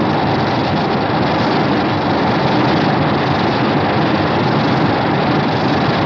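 A Godzilla film sound effect from the 1962–1975 films: a loud, steady, dense rushing noise that starts suddenly and holds without any change in pitch.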